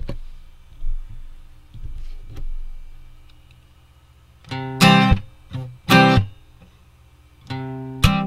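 Background music on guitar: a few soft picked notes, then loud strummed chords from about four and a half seconds in.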